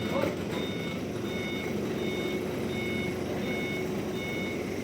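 A vehicle's reversing alarm beeps steadily, about one short beep every 0.7 seconds, over the low running of an engine. There is a brief rising squeak at the very start.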